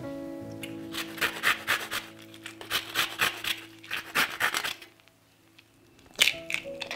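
Quick rasping, scraping strokes in three short runs, about four or five a second, from a hand kitchen tool worked against food or a bowl, over soft background music; a sharp knock comes near the end.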